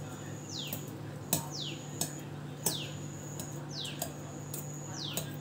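A wire whisk tapping and scraping in a glass bowl as peeled bananas are mashed, with a few sharp clicks. Behind it, a bird calls over and over, about once a second: a short high note, then a falling whistle.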